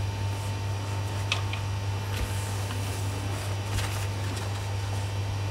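Steady low electrical hum with a faint higher steady tone above it, broken by a few light clicks and taps.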